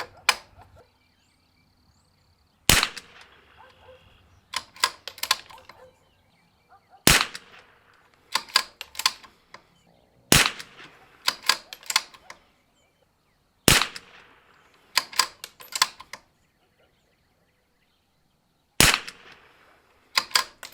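Five .22 LR shots from a Zermatt Rim-X bolt-action rifle, three to five seconds apart, each followed by a quick run of clicks as the bolt is worked to eject and chamber the next round. They are the last fouling shots, fired to re-foul a freshly cleaned barrel and chamber.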